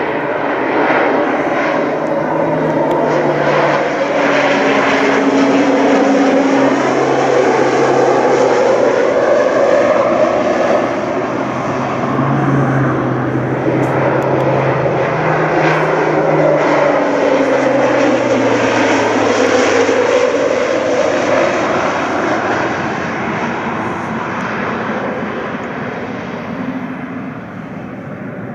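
Air Tractor AT-802AF Fire Boss's turboprop engine and propeller running loud as the float-equipped water bomber flies low and skims the water on its floats to scoop a load. The drone's pitch sweeps up and down as it passes, and the sound eases off a little near the end.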